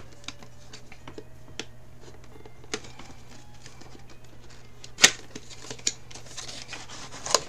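Cardboard box holding a metal watercolour tin being handled and opened on a table: scattered light taps and scrapes, with a sharp knock about five seconds in and another near the end.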